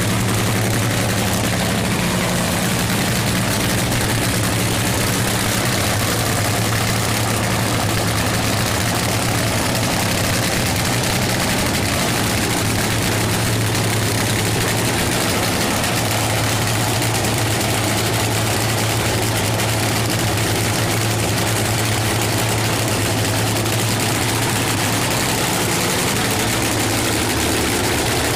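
Supercharged nitro-burning V8 of a 1989 Pontiac Trans-Am funny car cackling at a steady idle through its open zoomie headers.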